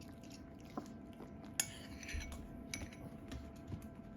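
Spoon clicking and scraping against a yogurt container while dogs are fed yogurt: a few light clicks, the sharpest about a second and a half in, followed by a short scrape.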